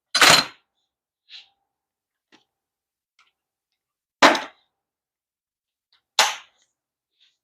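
Three sharp metal impacts, each ringing out briefly: one right at the start, then two more about four and six seconds in, with faint clicks of tools being handled between them.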